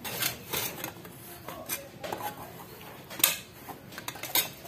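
Irregular metallic clinks and knocks from a stainless racing exhaust silencer can as glass wool packing is pushed and pressed down into it by hand, with one louder knock about three seconds in.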